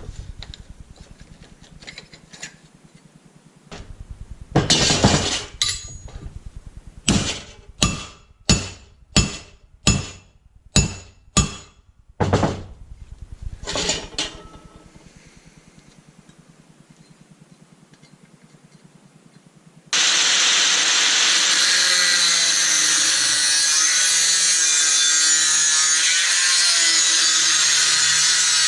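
Hammer blows on metal, about ten sharp strikes at a steady pace, followed by a pause; then a power tool starts suddenly and runs continuously on steel, its pitch wavering as it is worked against the metal.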